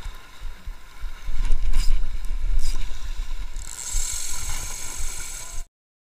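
Wind buffeting the microphone of a first-person action camera, with the rush of choppy sea water beneath it. It cuts off abruptly near the end.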